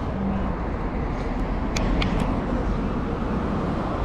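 Road traffic noise from cars driving past on a city street, a steady rushing hum. About two seconds in come three short, sharp high clicks in quick succession.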